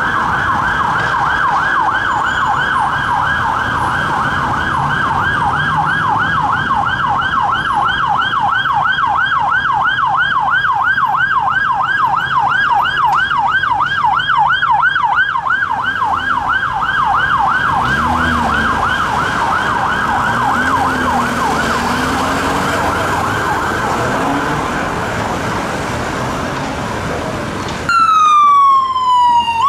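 Emergency vehicle siren on a fast yelp, a rapid warble of about three to four cycles a second, which fades out over its last few seconds. Near the end, after a sudden change, a siren on a slower wail falls and then rises.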